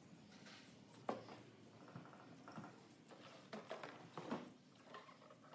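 Near silence: quiet room tone with a few faint, scattered clicks and taps.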